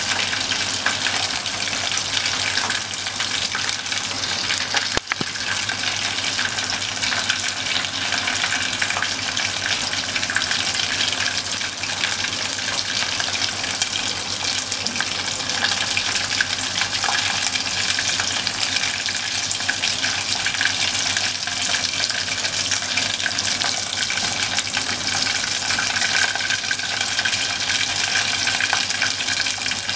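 Bone-in beef short ribs deep-frying in hot oil in a small pot: a steady, dense sizzle and crackle. It breaks off for an instant about five seconds in.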